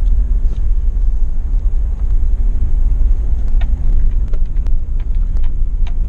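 Jeep driving on a gravel road, heard from inside the cabin: a steady low rumble of tyres and engine, with a few small clicks scattered through it.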